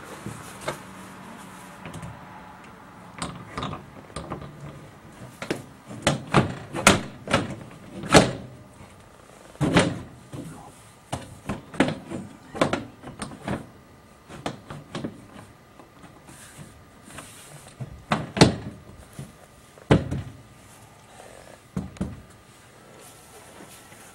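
Aluminium front panel of a Generac standby generator enclosure being fitted back onto the cabinet: a run of irregular metal knocks and clunks. The loudest come around eight to ten seconds in and again near eighteen to twenty seconds.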